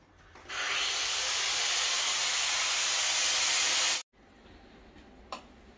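A loud, steady hiss lasting about three and a half seconds that cuts off suddenly, followed by a single faint click.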